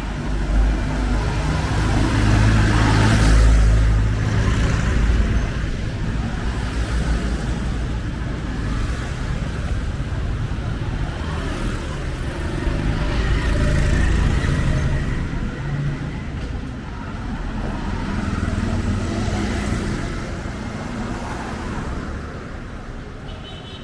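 Street traffic: motorbikes, a tuk-tuk and a small truck passing close, their engines swelling as each goes by, loudest a few seconds in and again about halfway.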